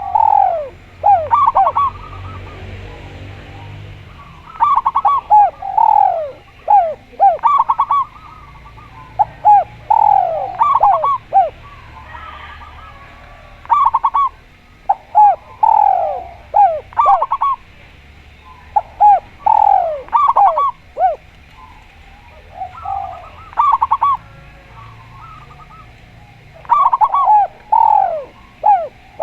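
Doves cooing: short, quick runs of repeated coo notes, a burst every second or two with brief gaps between, throughout.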